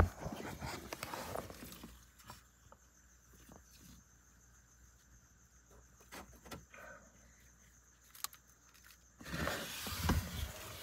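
Quiet handling sounds of a plastic tub holding hatching substrate and hatchling monitor lizards: a sharp knock right at the start, rustling and scattered light taps, then a stretch of rustling near the end.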